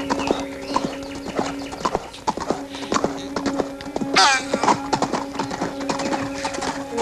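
Horse hooves clip-clopping over a steady held music chord, with a horse's short whinny about four seconds in.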